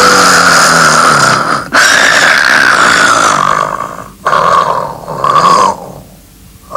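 A person snoring very loudly: a series of long, harsh snores, the first two the longest, then two shorter ones, dying away about six seconds in.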